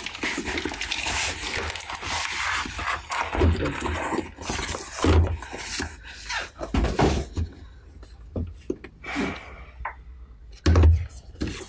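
Paper and cardboard packaging rustling and scraping as a mailer envelope is torn open and a boxed pair of headphones slid out, then a few dull knocks of the box being handled on a table, the loudest near the end.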